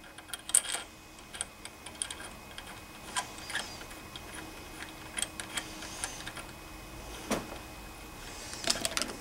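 Light, scattered metallic clicks and ticks as a brass carburetor nozzle is threaded by hand into an aluminum Walbro carburetor body. There is a sharper click about seven seconds in and a quick run of clicks near the end.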